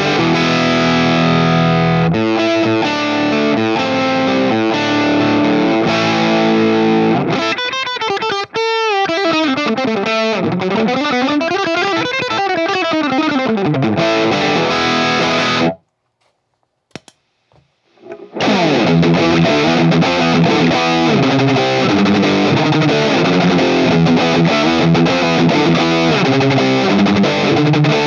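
Electric guitar played through a Griffin Analog Super Drive overdrive pedal, with distorted chords and riffs. About eight seconds in comes a stretch of sweeping pitch glides that rise and fall. After a pause of about two seconds, the riffing starts again.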